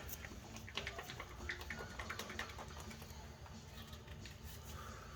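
Light metallic clicks and taps, irregular and bunched in the first couple of seconds, as flywheel bolts are started into a Honda Civic's crankshaft.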